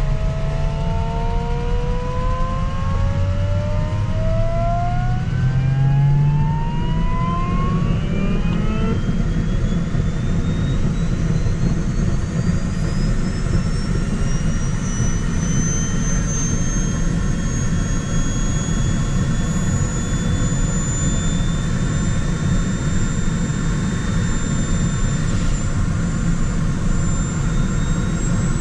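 M&D Flugzeugbau MDTJ-42 small turbojet sustainer on an LS4 glider starting up: its whine climbs steadily in pitch over the first ten seconds or so as it spools up, then holds as a steady high whine at running speed. Heard from inside the cockpit over a constant low rumble.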